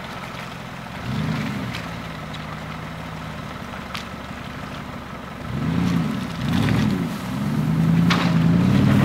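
4x4 SUV engine revving under load as the vehicle climbs a rutted off-road trail. Short swells of throttle come about a second in and again around six seconds, then higher revs are held near the end. A few sharp clicks sound over it.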